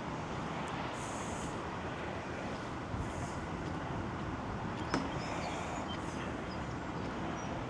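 Steady background hum of road traffic, with a single sharp click about five seconds in.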